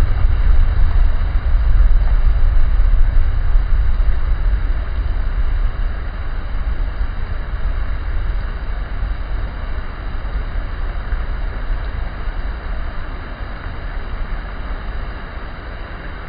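Heavy tropical rainstorm: a steady hiss of rain under a deep rumble that is loudest at first and slowly dies away.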